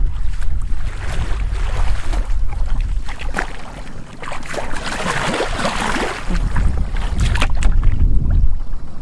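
Legs wading and splashing through shallow muddy water in a flooded rice field, the splashing heaviest about halfway through, over a steady rumble of wind on the microphone.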